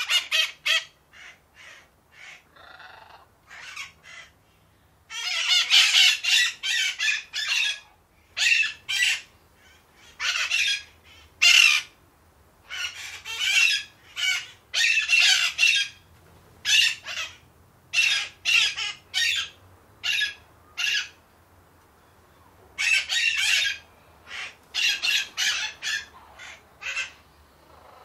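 Agitated parakeets giving harsh, rasping squawks and chirps in quick irregular runs, several birds calling over one another at times, with brief pauses between runs.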